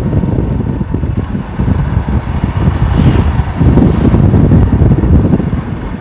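Wind buffeting the microphone of a phone on a moving motorbike, mixed with the bike's running and road noise.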